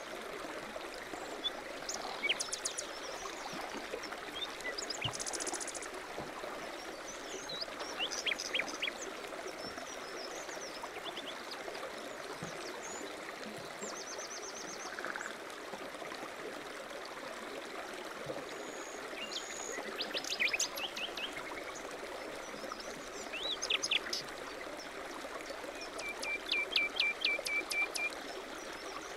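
A stream running steadily, with small birds chirping and trilling over it now and then. Near the end comes a run of quick, repeated short notes.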